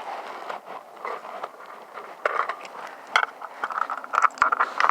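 Cartridges being pressed into a firearm magazine: a series of sharp metallic clicks with scraping and handling noise in between.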